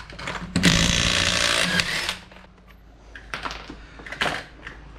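Cordless impact wrench hammering on a wheel lug nut to loosen it, one burst of about a second and a half. A few light clicks and knocks follow.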